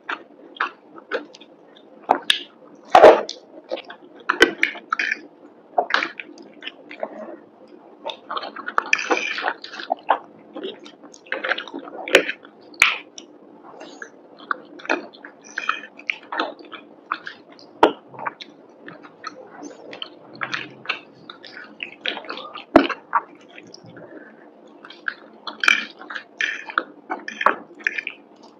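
Close-up eating of crispy breaded fried chicken and creamy penne pasta: a dense run of irregular chewing clicks, smacks and crunches, the loudest about three seconds in.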